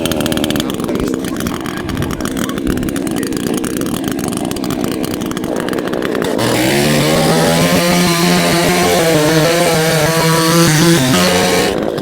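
Proyama 68cc two-stroke gas chainsaw running just after a cold start. About six seconds in it is throttled up to a high, steady pitch that holds for about five seconds, then drops back near the end.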